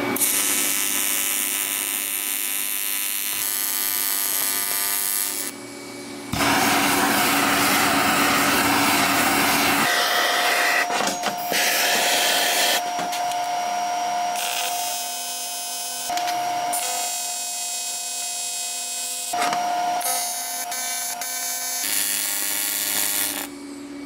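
TIG welder arc buzzing and hissing while fittings are welded onto a cast aluminium water pump. It comes in several stretches of a few seconds each with brief breaks between beads. Under it runs the steady hum of the welder's torch water cooler, which is really loud.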